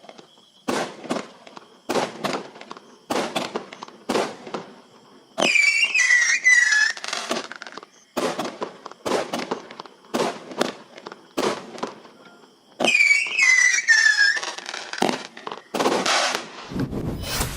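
Consumer fireworks firing a rapid series of shots, each a sharp bang about every half second. In two stretches, several whistles scream at once, falling slightly in pitch. Near the end the shots turn to crackling.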